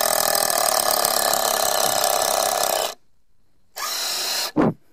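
Ridgid 18V cordless impact driver hammering a 2.5-inch drywall screw into wood at full trigger, with a rapid rattling of impacts, for about three seconds. After a pause it gives a second short burst as the screw reaches as far as it will go, ending in a falling whine as the motor stops.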